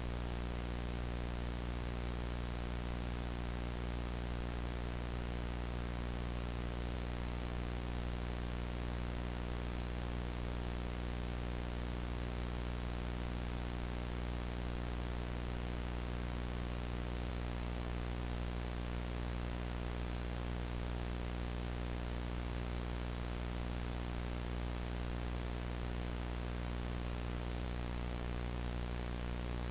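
VHS tape static: a steady analog hiss with a low hum and its evenly spaced overtones underneath, unchanging throughout.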